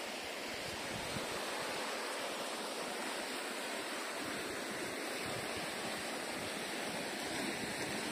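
Steady, even rushing noise with no distinct events, the kind of sound surf, falling water or wind makes.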